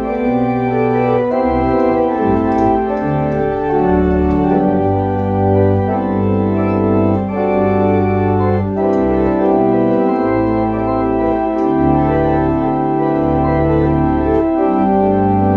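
Organ music: slow, sustained chords over held bass notes, the harmony changing about every second or two.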